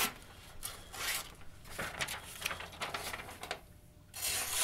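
Rubbing, rasping strokes of a folding knife's D2 steel blade drawn through material in a slicing test of the edge after chopping, with a louder rasping stroke near the end.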